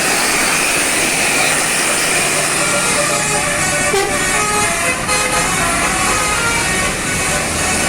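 Bus 'telolet' musical horn sounding short notes in scattered bursts over steady, loud vehicle noise.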